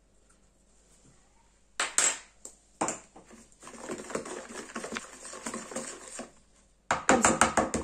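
A wooden spoon stirring wet cookie batter of melted butter, sugars and eggs in a plastic bowl. A couple of sharp clicks come first, then quick soft scraping strokes, and near the end fast, loud, even knocks as the mixture is beaten.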